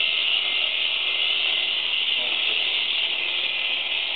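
Electric shears running with a steady high-pitched buzz as the cutter head moves through an alpaca's fleece.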